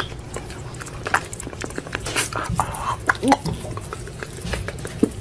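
An opossum eating, chewing with quick, irregular smacking clicks and a few short hissy breaths.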